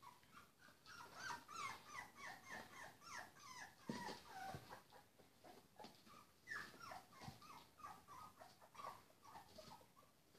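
Three-week-old puppies squeaking and whimpering: a fast string of short, high squeaks, each sliding down in pitch, about three a second, with one knock about four seconds in.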